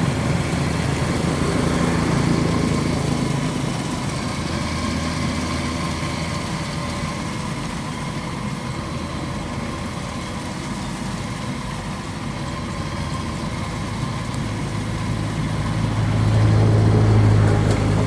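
Kubota DC93 rice combine harvester's diesel engine running steadily, growing louder near the end.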